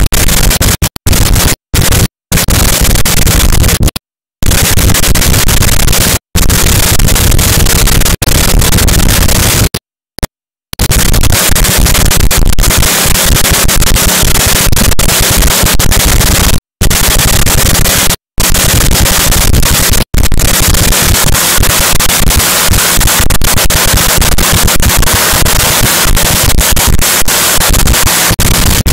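Nitromethane-fuelled supercharged Funny Car engine running in a pit warm-up, so loud that the recording overloads into harsh distorted noise. The sound cuts out for brief moments every few seconds.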